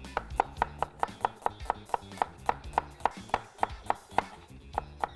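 A cleaver slicing a red onion into thin julienne strips on a wooden cutting board: quick, even knocks of the blade on the board, about four a second.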